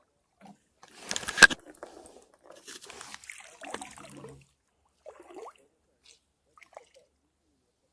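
Handling noises: a rustling clatter with one sharp knock about a second and a half in, then a couple of seconds of irregular scraping and rustling, and a few faint scrapes near the end.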